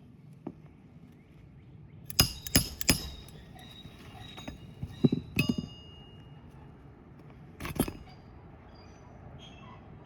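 Metal hand tools clinking sharply on a shingle roof: three quick ringing strikes about two seconds in, two more around five seconds, and a last one near eight seconds.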